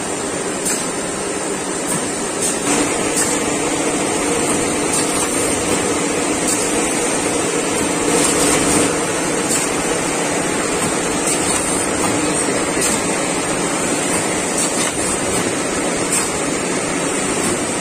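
Plastic-film bag-making machinery running in a factory hall: a steady mechanical din with a faint hum and short sharp clicks every couple of seconds.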